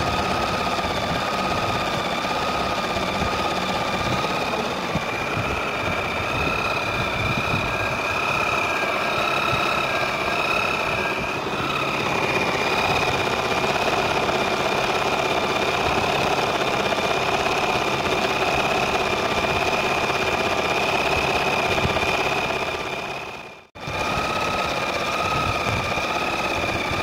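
Janome 6000 electric sewing machine running steadily at speed, stitching a decorative edge pattern: a continuous rapid needle clatter with a steady high-pitched motor tone. The sound dips out briefly about three-quarters of the way through and comes straight back.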